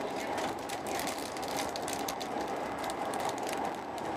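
Eurostar Italia train running at speed, heard from inside the passenger car: a steady rumble and hiss with many faint, irregular clicks.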